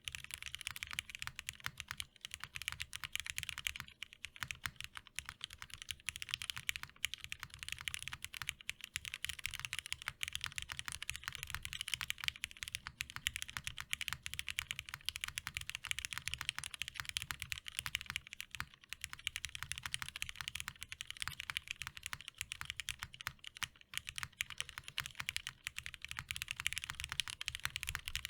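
Continuous fast typing on a custom tenkeyless mechanical keyboard with lubed linear Cherry MX Hyperglide Black switches on a top-mounted aluminium plate: a dense, even stream of soft keystrokes with a low thock under each.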